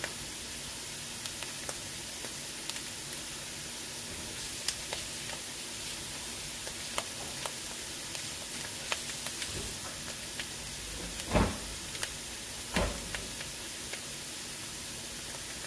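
Onions, mushrooms and sun-dried tomatoes frying in corn oil in a pan: a steady sizzle with scattered small pops. Two louder knocks come a little past the middle, about a second and a half apart.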